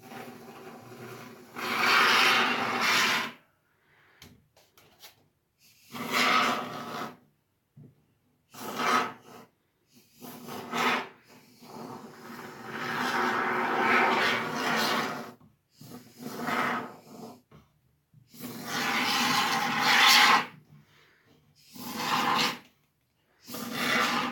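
Can of expanding foam sprayed through its applicator tube in about nine separate bursts, each from under a second to about three seconds long.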